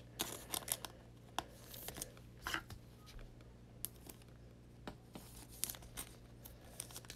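Faint rustling and light clicks of trading cards being handled in the hands, with a soft crinkle of a clear plastic card sleeve as a card is slid into it.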